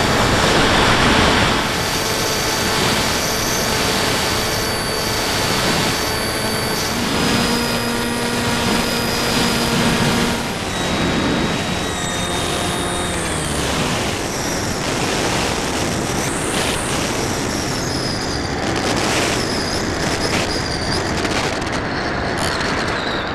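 Radio-controlled model airplane's motor heard on board, a steady whine of several tones over rushing wind on the microphone. About halfway through, the tones slide down in pitch, then run on at varying pitch.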